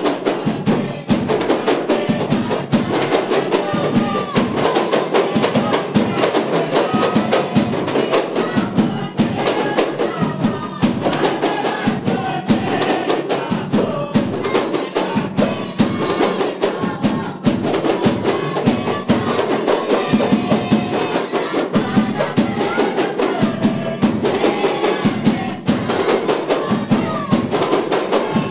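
A kompang ensemble beating Malay hand-held frame drums in a dense, steady stream of interlocking strokes.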